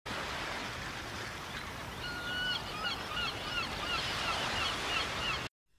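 Surf breaking on a beach, a steady wash of waves, with birds calling in short repeated calls from about two seconds in, one held a little longer than the rest. The sound cuts off suddenly just before the end.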